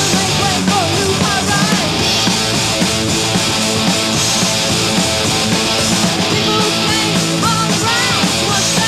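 A heavy metal band playing live at full volume: distorted electric guitars, bass and drums, with high lines bending in pitch above them.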